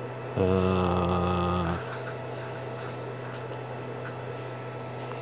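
Felt-tip marker writing on a paper legal pad in a few light, scratchy strokes, over a steady low hum. Near the start a man's voice holds a steady 'mmm' for about a second and a half.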